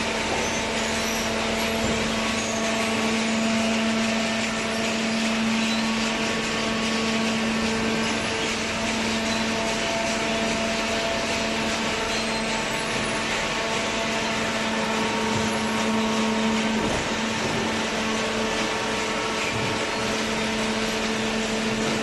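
Horizontal cardboard baling press running: a steady machine hum with a constant whine over a rushing noise.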